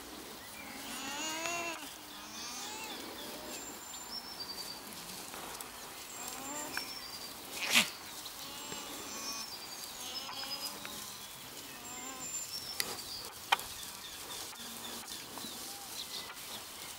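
Alpaca crias humming: several short hums that rise and fall in pitch, with birds chirping in the background. A single sharp knock about eight seconds in is the loudest sound.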